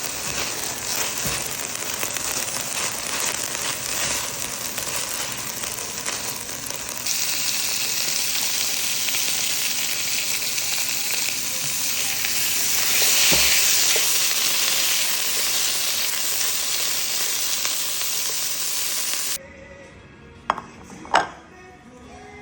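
Food sizzling as it fries in a hot pan, a steady hiss that grows louder partway through. The sizzle cuts off suddenly near the end, followed by two sharp knocks.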